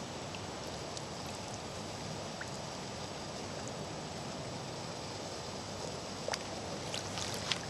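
Steady rushing noise of wind and rippling water at a lake edge, with a few short sharp clicks about six seconds in and again near the end.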